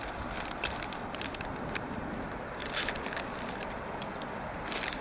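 Steady rushing noise of a Class 390 Pendolino electric train approaching on the line, with scattered sharp crackles throughout.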